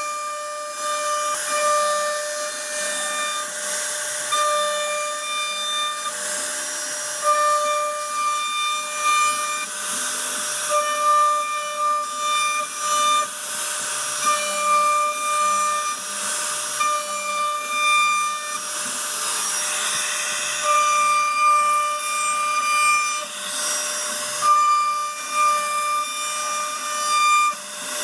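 CNC router spindle whining at a steady high pitch while the bit cuts wood, with a hiss of cutting. The whine and cutting noise grow and fade every few seconds as the tool moves along the carving path.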